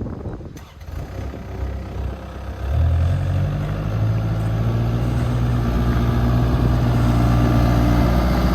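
Diesel engine of a Kubota KX057-4 mini excavator. It comes up about three seconds in, after a few seconds of irregular knocks and rumble, and then runs at a steady, even note.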